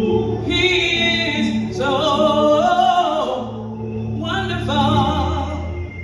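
A woman singing a gospel song, holding notes with a wavering vibrato, over steady sustained low accompaniment notes.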